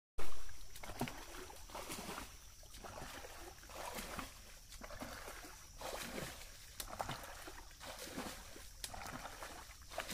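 Shallow muddy water splashing and sloshing in irregular bursts as a person wades through it and scoops with a bucket. It begins with one sharp, loud knock.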